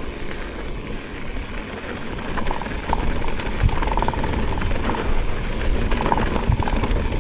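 Mountain e-bike being ridden over a rough trail: a steady rumble of wind and riding noise, with scattered clicks and rattles from the bike.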